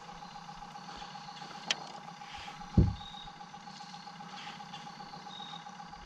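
Quiet fishing boat sitting on the water: a steady faint hum with a thin whine over it, a light click, and a dull thump just before halfway.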